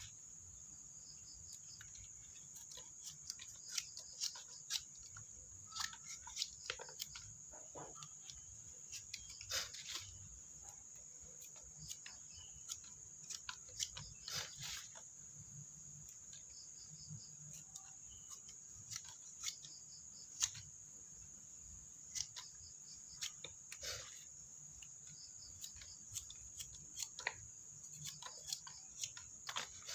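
Steady high-pitched chirring of crickets or similar insects, with scattered clicks, snaps and rustles from close handling throughout.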